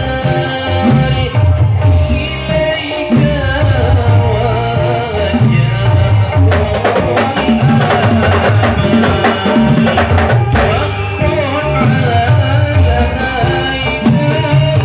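Hadrah ensemble: several hand-beaten rebana frame drums playing a driving, interlocking rhythm under group singing of devotional chant.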